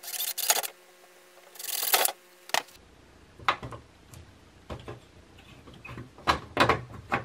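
Cordless drill running in two short bursts as a small bit cuts through the plastic refrigerator vent, followed by scattered light clicks and scrapes of a drill bit being handled and fitted in the freshly drilled hole.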